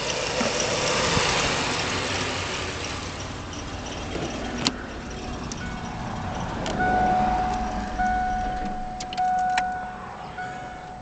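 A car engine running for the first few seconds, then a sharp click, followed by the car's steady electronic warning chime with the driver's door open, broken by a few sharp clicks near the end.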